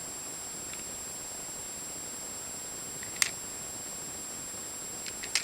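Small clicks of plastic Eastsheen 4x4 puzzle pieces being set in place during reassembly, one sharp click about three seconds in and a few light ones near the end, over a steady hiss with a constant high whine.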